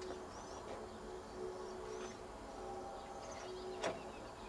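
Faint outdoor background with small birds chirping now and then, and one sharp click near the end.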